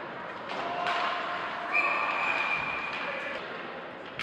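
Referee's whistle held for about a second and a half, starting a little before the middle, over the hall noise of an ice hockey game.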